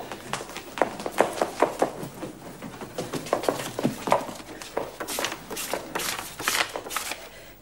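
Hasty handling of books at a shelf: books pulled out and pages flipped quickly, an irregular run of paper flaps, rustles and light knocks, busiest near the end.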